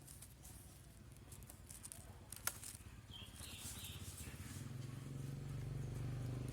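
Faint outdoor ambience with scattered light ticks and scrapes and one sharp click about two and a half seconds in; a low engine hum builds in the last couple of seconds.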